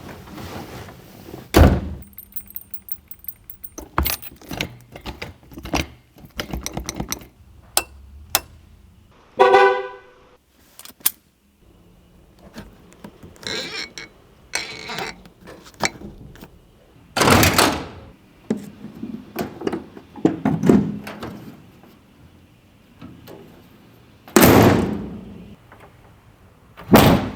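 Handling sounds of a 1967 Austin-Healey 3000 Mk III with the engine off: a series of heavy thunks of parts of the car being shut, with small clicks and rattles in between, and a short blast of its horn about ten seconds in.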